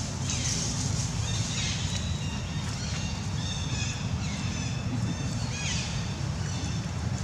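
Baby macaques squealing: several short, high squeals that fall in pitch, with a few held high notes between them, over a steady low rumble.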